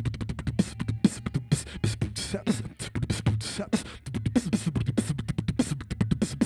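Background music: a fast song driven by a dense, even percussive beat of several hits a second.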